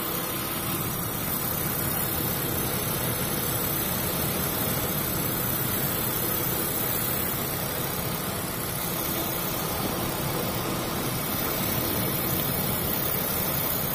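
Steady, even rushing noise of wind and sea aboard a ship in a storm, with a faint low hum beneath and no break in it.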